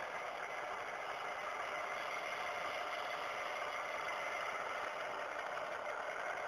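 Model diesel locomotive's sound unit playing a steady diesel engine idle through a tiny speaker, thin and hissy with little bass.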